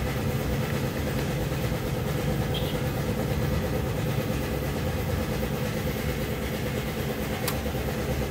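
An engine idling steadily, a low even hum, with a faint tick near the end.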